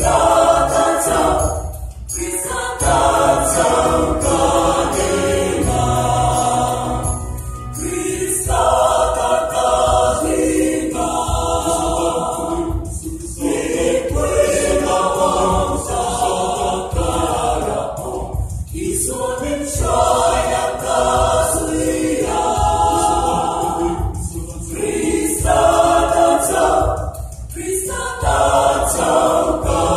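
Mixed choir of men and women singing a hymn in Mizo, in phrases of about five seconds with short breaks between them.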